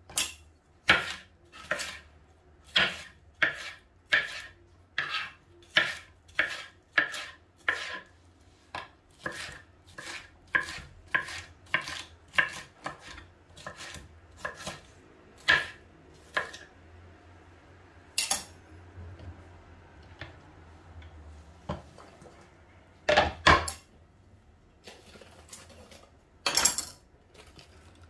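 Kitchen knife cutting bell peppers on a cutting board: a steady run of knocks, a little under two a second, then a few scattered knocks, the loudest a quick double knock about two-thirds of the way in.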